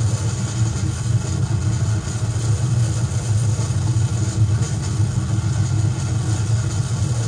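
Harsh industrial noise music playing from a 7-inch vinyl record: a loud, steady wall of heavily distorted, low-pitched drone with no breaks.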